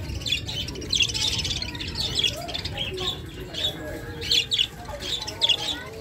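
A group of caged budgerigars chirping and chattering, a steady stream of short, quick high chirps.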